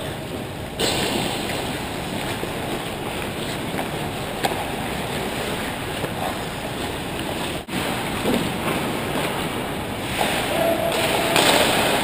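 Ice hockey skates scraping and carving the ice close to the net, over a steady rushing rink noise, with a sharp click about four and a half seconds in.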